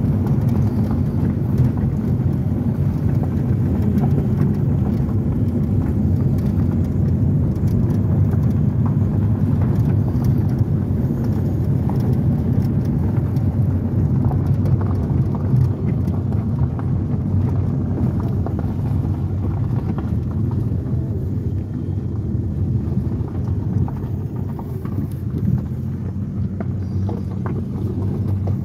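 A car driving slowly on a gravel road, heard from inside the cabin: a steady low rumble of engine and tyres, with scattered ticks of gravel under the tyres. The rumble eases a little near the end.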